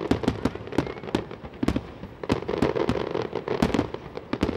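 Fireworks display: aerial shells bursting in quick, irregular succession, a string of sharp bangs and cracks. The bangs come thickest in the first second and again near the end, with a sparser stretch in the middle.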